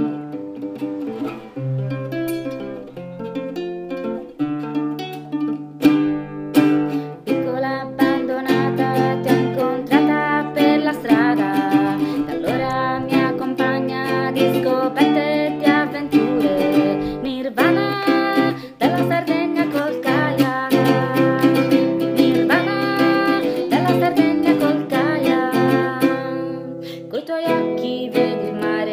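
A song: a woman singing over acoustic guitar accompaniment.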